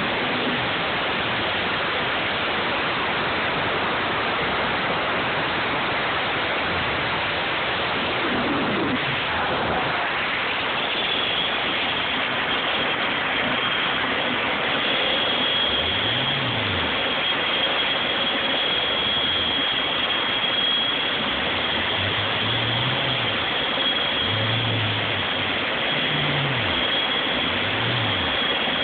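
Steady rushing of a model jet's small gas turbine running, with a high steady whine joining about a third of the way through.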